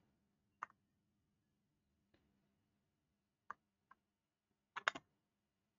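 Computer mouse clicking against near silence: a few single clicks spaced a second or more apart, then a quick pair near the end.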